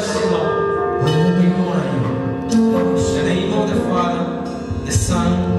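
Live worship music: a man sings lead into a microphone over held instrumental chords, with backing vocalists.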